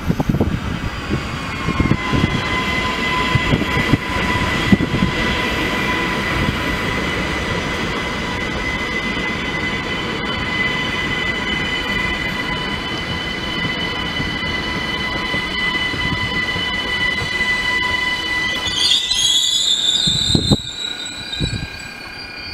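ÖBB Cityjet electric multiple unit (Siemens Desiro ML) running into a station and braking: wheels rumble on the rails under a steady high squeal. Near the end the squeal turns higher and sharper as the train comes to a stop.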